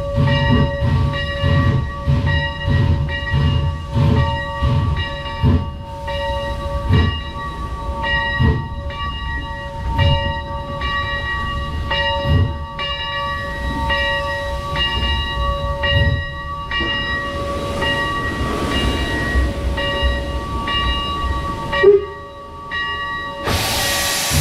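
Pennsylvania Railroad #331 steam locomotive rolling slowly to a stop, heard from its front: low rhythmic thuds about twice a second that slow and thin out as it comes to rest, over a steady high ringing whine, with a short squeak near the end.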